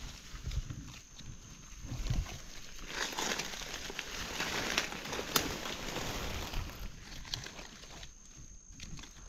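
Rustling and crunching of dry forest-floor leaf litter as wild mushrooms are searched out and picked by hand, with a few sharp clicks among the rustle.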